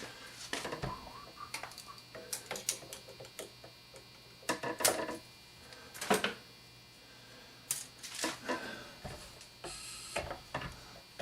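Scattered, irregular clicks and light knocks of hands working on zip ties strapping a scope to a .22 rifle, with a brief scratchy rustle near the end.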